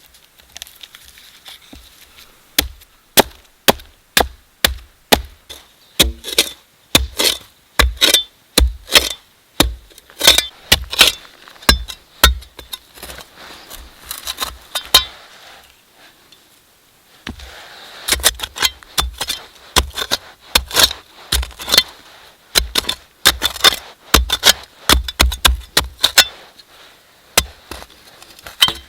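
A hand tool striking wood in rapid repeated blows, about two to three a second, each with a sharp crack. The blows pause for a couple of seconds about halfway through, then resume.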